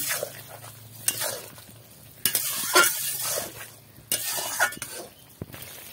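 Metal spatula stirring and scraping through ridge gourd curry in a metal karai, in irregular strokes, while the gravy sizzles underneath.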